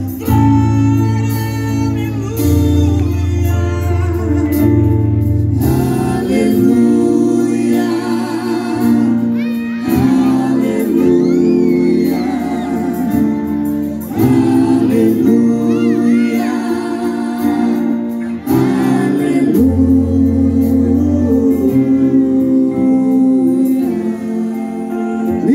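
A live band plays a Christian worship song in Portuguese. Several singers sing held notes with vibrato over electric guitar, bass guitar and drums.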